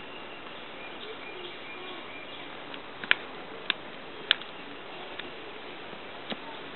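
Faint, thin, high-pitched mewing of young kittens whose eyes have just opened, over a steady hiss. Three sharp clicks come in quick succession near the middle.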